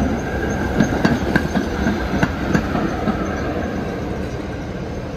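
PCC streetcar rolling past, its steel wheels clicking and knocking over the rail joints above a low rumble and a faint steady whine. The clicks stop after about three seconds and the rumble fades as the car moves away.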